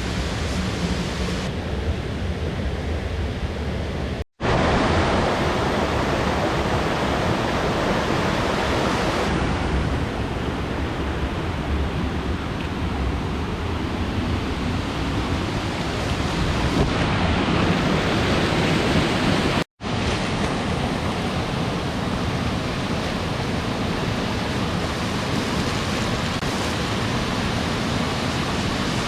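Steady rushing water, an even wash of noise, broken twice by brief silent cuts, about four seconds in and again near twenty seconds.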